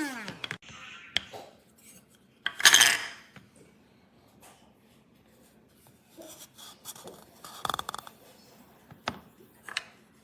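Electric blade coffee grinder's motor spinning down with a falling whine at the very start, followed by scattered clinks, clicks and knocks of the grinder and dishes being handled, with a short rushing noise about two and a half seconds in.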